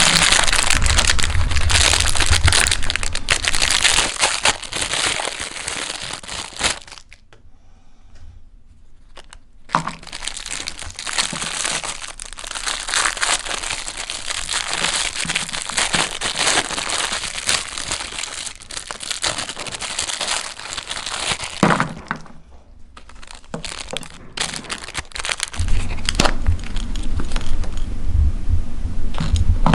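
Meat grinder crunching and crushing cookies, a dense crackle of breaking pieces with a low motor hum at the start and again near the end. The crackle drops away twice along the way.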